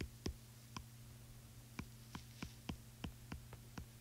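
Stylus tip tapping and clicking on a tablet's glass screen while handwriting, about a dozen short, sharp clicks at irregular spacing. A faint, steady low hum runs underneath.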